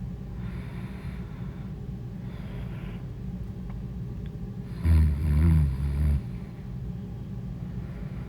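A sleeping woman snoring: two soft breaths, then a loud, deep snore about five seconds in that lasts just over a second. A steady low hum runs underneath.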